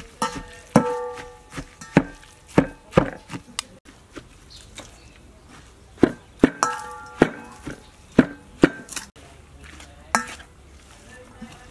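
A pestle striking down into chopped food in a stainless steel bowl at an irregular pace, about one to two knocks a second. Several strikes hit the bowl and leave it ringing briefly.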